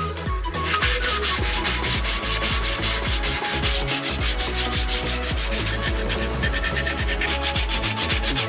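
Sandpaper rubbed back and forth on a workpiece in quick, even strokes, about four or five a second, with background music under it.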